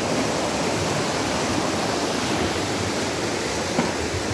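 River rapids: water rushing and churning over rocks in a steady wash, with one brief tap near the end.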